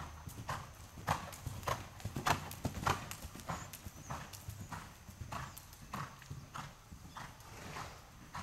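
Horse's hooves beating on the soft sand footing of an indoor riding arena, a steady rhythm of thuds a little under two a second as the horse is ridden around the ring.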